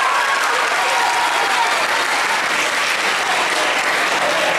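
Audience of schoolchildren applauding steadily, with a few voices calling out over the clapping.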